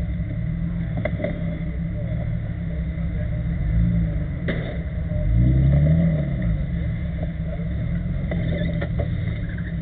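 Jeep Cherokee XJ engine rumbling as the wheels dig in a muddy ditch, the revs rising and falling, with the biggest rev about five to six seconds in. A sharp click sounds just before it.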